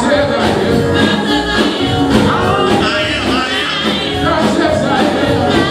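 Gospel music with singing over a full band.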